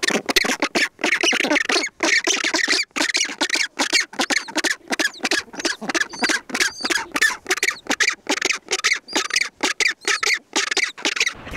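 Southern rockhopper penguins calling in a colony: a dense run of harsh, pulsed squawks, several a second, from adults and chicks squabbling. The calls stop abruptly at the very end.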